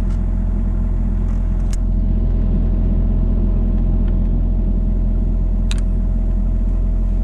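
An engine running steadily, a constant low drone with a faint steady tone above it and a couple of faint clicks.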